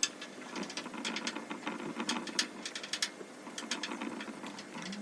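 A run of irregular light mechanical clicks and ticks, several a second, coming at uneven intervals.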